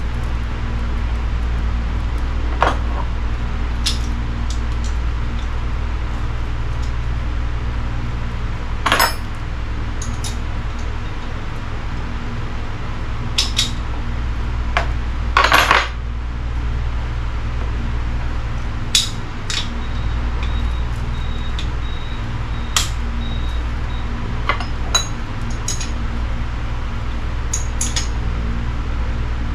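Scattered metallic clinks and taps of small tools and metal fittings being handled, about a dozen, with the loudest cluster a little past halfway, over a steady low hum.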